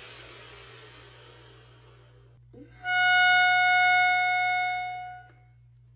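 End-card sting: a hissing whoosh that fades away over about two seconds, then one bright held electronic note for about two and a half seconds that fades out.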